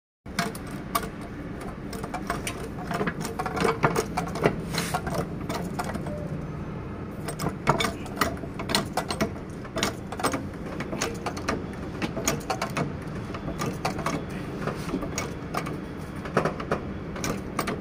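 Trolley hydraulic jack being pumped by its handle to lift a car: many short, irregular metallic clicks and clanks over a steady low background noise.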